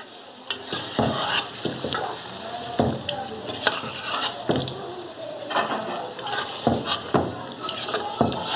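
Raw prawns sizzling in hot oil and fried masala in a pan, stirred with a spatula that scrapes and knocks against the pan at irregular intervals.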